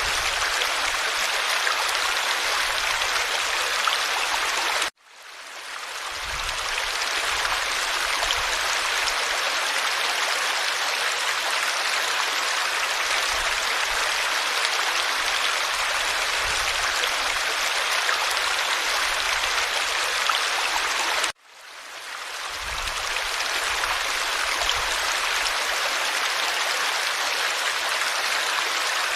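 Forest stream water flowing steadily. The sound drops out suddenly about five seconds in and again about twenty-one seconds in, each time swelling back to full over a second or two.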